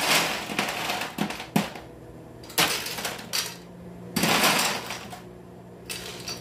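Ice cubes clattering into a glass in several irregular bursts, with a couple of sharp clicks about a second in and a longer rattle past the middle.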